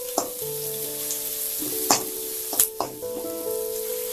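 Onions and tomato pieces sizzling in hot oil in a kadai as a metal ladle stirs them. The ladle knocks sharply against the pan a few times.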